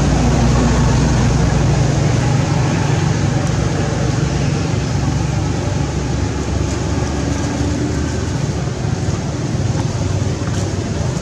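Steady low rumble and hum of motor traffic over a constant noisy background. The hum is strongest in the first few seconds, then eases slightly.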